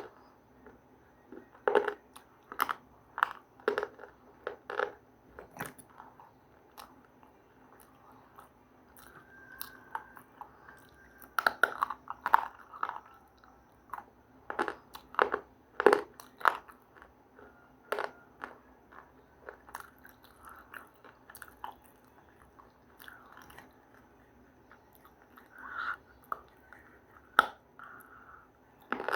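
A person biting into and chewing something hard and crunchy: irregular sharp crunches, some in quick clusters, with pauses between bites.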